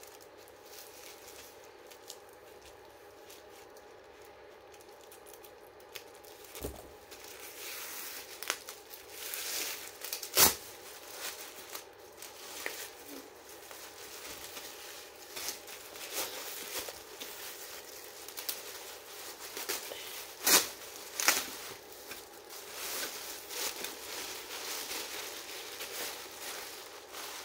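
Plastic packaging being crinkled and torn open by hand: faint at first, then irregular rustling from several seconds in, with a couple of sharp snaps, one about ten seconds in and one about twenty seconds in.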